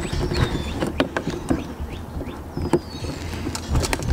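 Irregular plastic clicks and knocks as a Mercury 150 four-stroke outboard's fuel filter is wiggled by hand to work it free from under its bracket.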